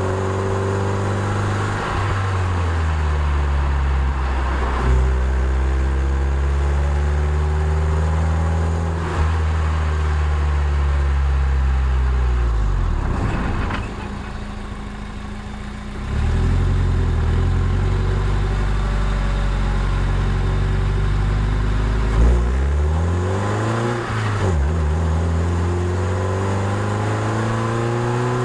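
Toyota MR2 Spyder's 1.8-litre four-cylinder engine pulling the car uphill, its pitch rising through the revs and dropping back at gear changes several times. It goes quieter and lower for a couple of seconds about halfway through, off the throttle, before pulling again.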